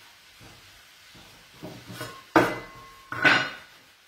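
Metal bench scraper knocking on a wooden pastry board while gnocchi dough is cut: a few light knocks, then two loud ones less than a second apart, each with a short metallic ring.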